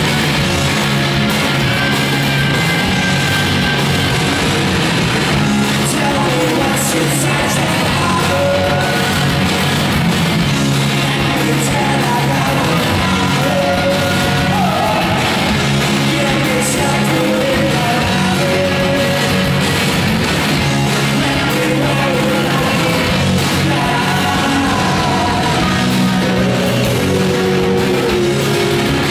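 Live rock band playing loud: electric guitars, bass guitar and drums, with sung and shouted vocals over them.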